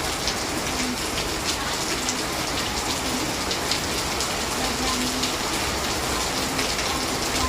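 Heavy rain pouring down steadily, a dense hiss with many sharp drop ticks.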